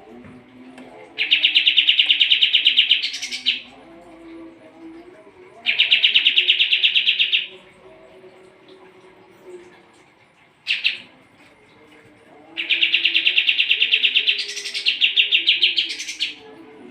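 A kapas tembak songbird delivering rapid, evenly pulsed trills in bursts of about two seconds. There are three long bursts and one short one, and the last rises to a higher flourish near its start. This is the loud 'tembak' shooting song used as a training recording for other songbirds.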